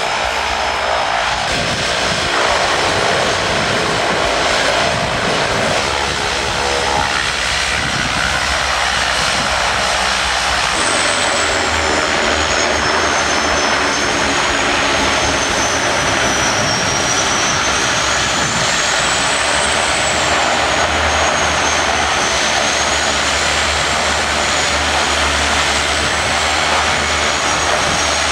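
Floatplane turboprop engines and propellers running steadily and loudly, as a Twin Otter floatplane taxis on the water. From about 11 seconds in, a thin high whine wavers slowly up and down in pitch over the engine noise.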